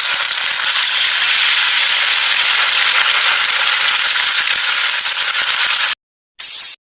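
Hot oil sizzling steadily in a cooking pan, crackling, cut off abruptly about six seconds in, then a short burst of the same sizzle.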